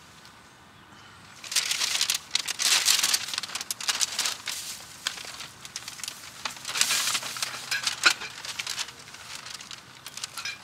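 Paper and plastic grocery bags rustling and crinkling as they are handled and lifted out of a car's cargo area, in repeated crinkly stretches that start about a second and a half in.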